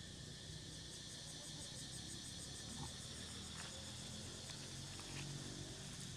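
Insects chirping steadily in the background, with a rapid pulsing high chirp through the first half. A few faint rustles in the second half, likely monkeys moving through dry leaf litter.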